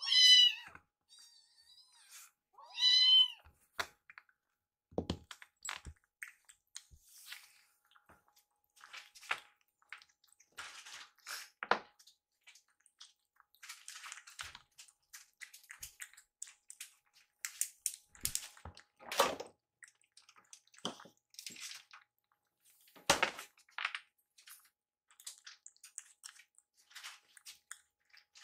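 A kitten meows twice, high-pitched, in the first few seconds. Then kittens eat from ceramic bowls, with faint scattered chewing, smacking and small clicks.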